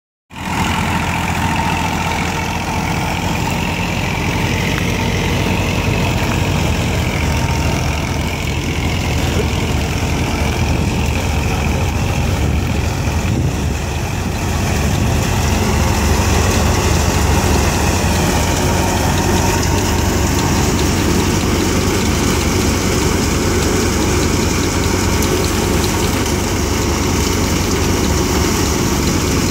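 Farm tractor engine running steadily, driving a wheat thresher, blended with the thresher's own running noise as wheat is fed through it.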